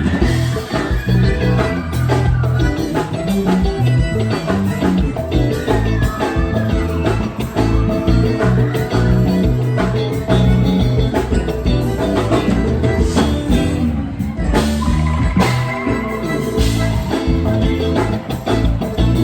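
Live band playing a forró gospel song with drum kit, bass and electric guitar, a melody line over a steady beat.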